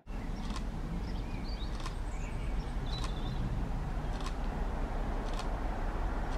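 Outdoor ambience of steady wind rumble on the microphone, with faint birdsong chirping in the first few seconds and a few soft clicks spaced about a second apart.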